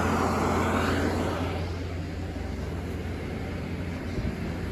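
A car passing by, its tyre hiss fading away over the first second or two, over a steady low traffic rumble.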